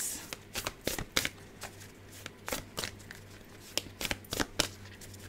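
A deck of oracle cards being shuffled by hand: a run of quick, irregular card clicks and flicks, busiest near the start and again about four seconds in.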